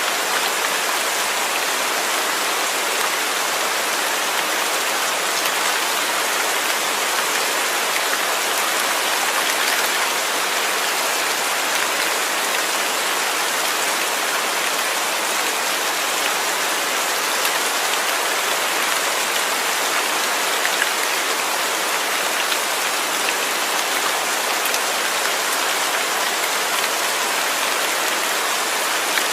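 Steady rain falling, an even hiss with the patter of individual drops on a hard surface throughout.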